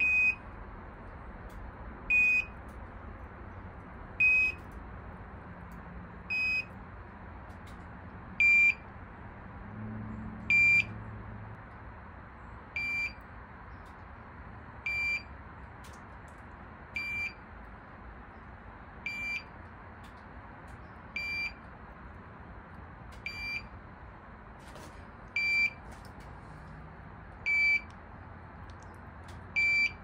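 TOPTES CT-580 handheld carbon monoxide detector sounding its alarm: one short, high beep about every two seconds. The beeping signals a CO reading still above its alarm level of about 45.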